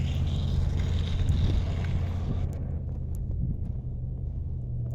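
Low steady outdoor rumble, with a hiss over it that dies away about halfway through and a few faint clicks after.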